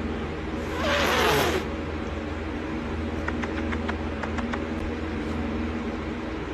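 A domestic cat hissing once, a short hiss with a falling yowl in it, about a second in. After it only a steady low hum and a few faint clicks.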